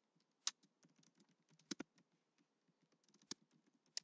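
Faint typing on a computer keyboard: a quick run of soft key taps with a few louder key strikes scattered through it.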